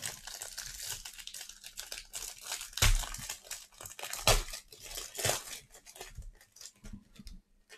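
Tearing and crinkling as a hanger box of sports cards is ripped open, with louder rips about three, four and five seconds in, thinning out near the end.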